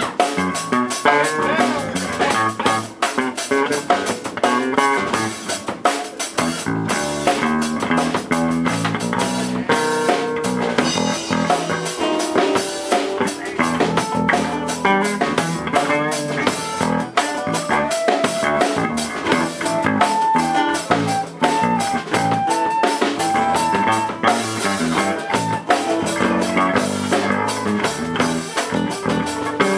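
Live band playing an instrumental passage: electric bass, guitar and drum kit, with a lead melody of held notes in the middle of the passage.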